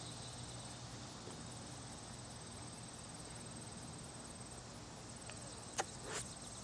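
Crickets chirping steadily in the background, a faint high pulsing trill. A short click and a brief soft sound come near the end.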